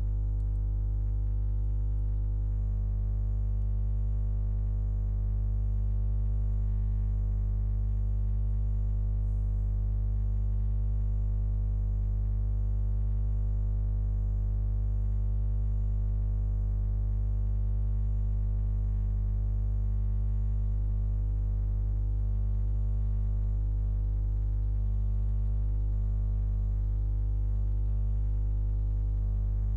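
A steady, unchanging low electronic drone made of many stacked tones.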